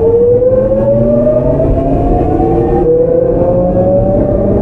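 Tokyu 9000-series train's early Hitachi GTO-VVVF inverter whining under power as the train accelerates, heard on board over the rumble of the wheels. The pitch climbs steadily, drops back about three seconds in and climbs again, as the inverter changes pulse mode.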